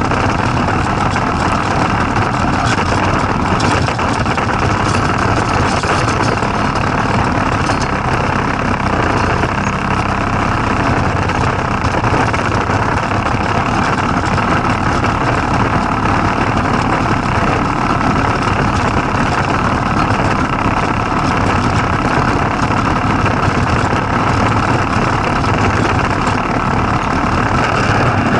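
Go-kart's single-cylinder Tecumseh small engine running steadily at an even pitch.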